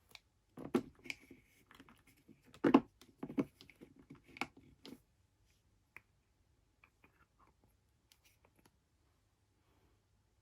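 Small plastic toy pieces being handled and set down: a run of clicks and light knocks over the first five seconds, then a few faint ticks.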